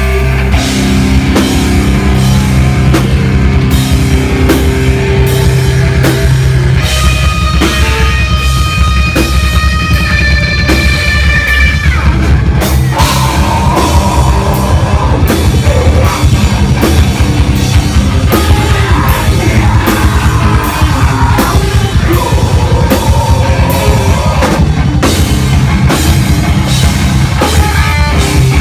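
A live heavy rock band playing loud: distorted electric guitars and bass over drums hitting in a steady rhythm, with a held high guitar note about a third of the way through.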